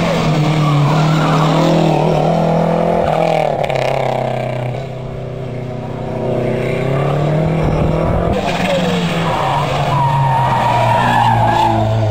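Small hatchback slalom cars' engines revving hard through a cone course, the pitch climbing and dropping again and again with throttle and gear changes. It is a little quieter about five seconds in, then louder again as the next car comes close near the end.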